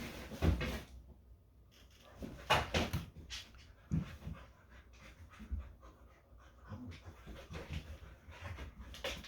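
Dogs panting while they play, with a few short noisy bursts in the first half and a run of quick, even pants later on.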